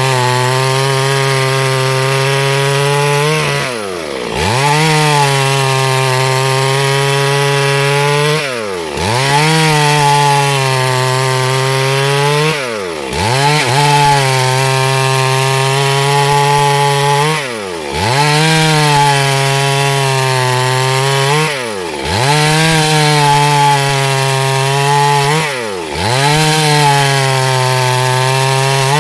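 Two-stroke chainsaw at high revs ripping a log lengthwise into boards. About every four seconds the engine note falls sharply as the throttle drops off, then climbs back to full speed.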